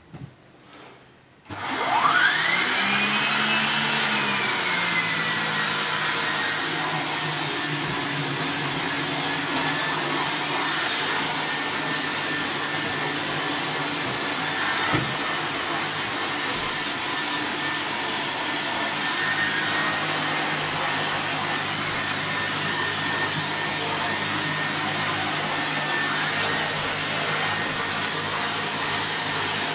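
Shark Powered Lift Away NV681UKT bagless vacuum cleaner switched on about a second and a half in: its motor whine rises quickly in pitch, overshoots, then settles into a steady run. The turbo brush on the hose is working the carpeted stairs.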